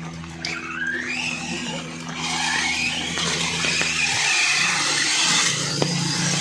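Electric motor of a small radio-controlled rally car whining, rising and falling in pitch as it speeds up and slows, with background music.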